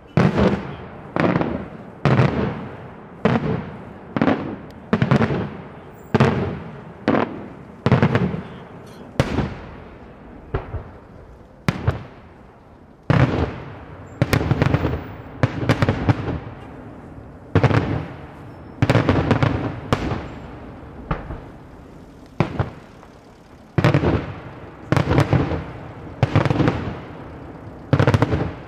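Daytime aerial fireworks shells bursting in a rapid series of loud bangs, about one a second, each trailing off in an echo, with a short lull midway.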